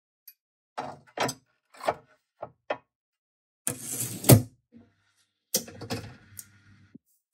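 Glass jar of cleaning solution knocking and clunking as it is handled and set into a watch-cleaning machine's jar holder, with several separate knocks and the sharpest, loudest clunk about four seconds in. Near the end the machine's glass front door is shut with a clunk.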